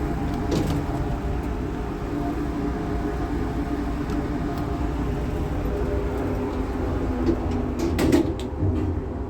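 Steady mechanical hum of a passenger lift running, with a few sharp clicks and a louder clatter about eight seconds in.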